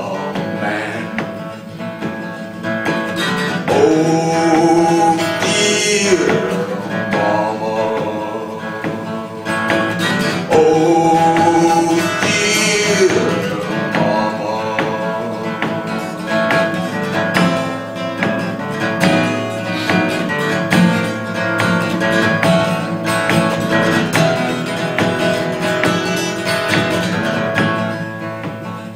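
A man singing to his own acoustic guitar, with two long held vocal notes a few seconds apart.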